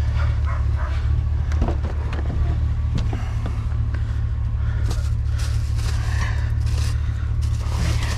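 Vehicle engine idling with a steady low hum, with scattered clicks, knocks and rustling as a tie-down strap is put over a scrap stove.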